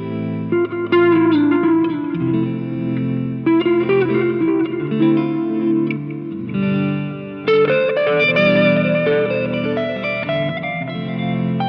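Electric guitar, a Squier Jazzmaster played through a board of effects pedals into a Fender Tonemaster Deluxe Reverb amp, playing a slow melodic passage of chords and single notes with effects coloring the tone.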